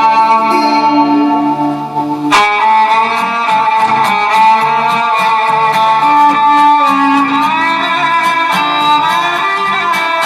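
Music with guitar and strings, steady and loud, with one sharp crack about two seconds in.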